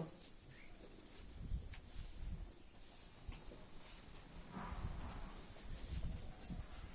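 Steady high-pitched insect chirring from the surrounding countryside, with faint low rumbles now and then.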